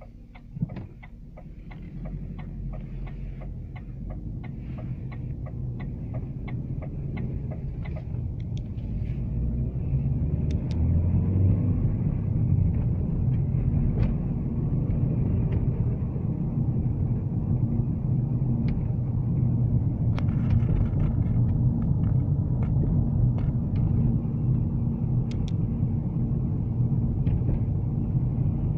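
Inside the cabin of an Opel Zafira pulling away: the turn-signal relay ticks steadily and stops about eight seconds in, with a single knock just under a second in. Engine and road rumble grows as the car gathers speed, then levels off about twelve seconds in.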